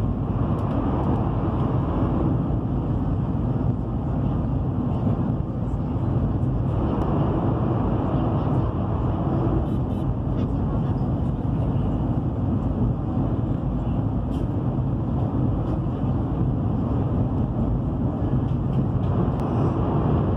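Steady, deep rumble of a high-speed train running at speed, heard from inside the passenger cabin: wheels on rail and air rushing past, at an even level throughout.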